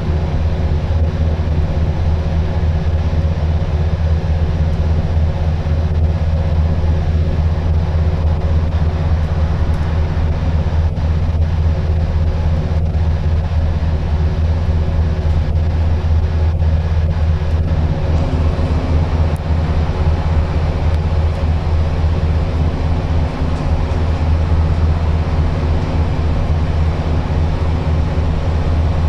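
Scania N230UD double-decker bus's five-cylinder diesel engine and road noise heard from inside the passenger saloon while the bus runs along the road: a steady low drone, with a few faint ticks and rattles midway.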